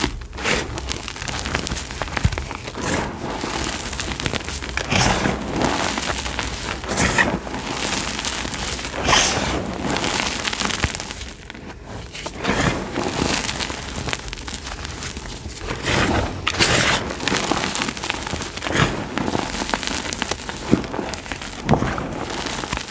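Chalk being crushed, a run of crunching, crumbling bursts every second or two.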